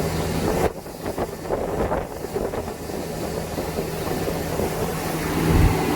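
Boat motor running with wind and water noise on the microphone; its steady low hum fades out about a second in, leaving a rushing noise, and returns near the end.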